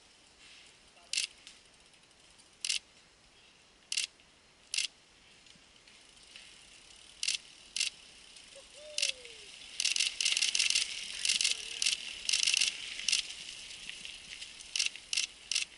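Mountain bikes rattling down a rough dirt trail: chains and freewheel hubs clicking in short sharp rattles, scattered at first, then coming thick and fast about ten seconds in as the riders get close.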